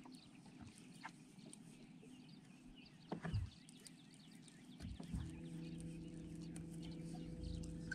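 Birds chirping faintly at dawn, many short high calls. A single low thump sounds about three seconds in, and from about five seconds a steady low hum sets in.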